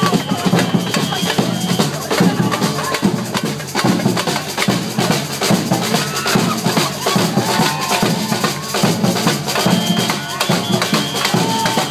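Live percussion band drumming a steady, dense rhythm, with a crowd's voices underneath.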